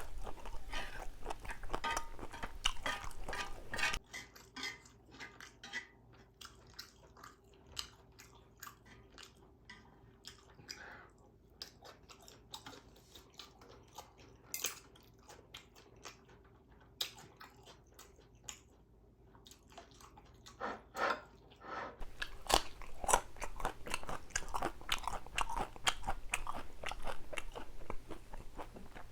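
A person chewing and crunching a mouthful of food, loud for the first few seconds, softer through the middle, then loud again for the last several seconds.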